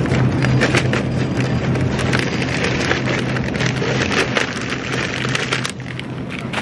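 Close rustling and crackling handling noise at the microphone, a dense run of quick crackles that thins out near the end, over a steady low hum.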